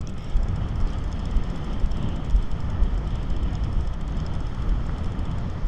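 Wind buffeting the microphone: a steady low rumble that swells and dips with the gusts, over a faint wash of surf.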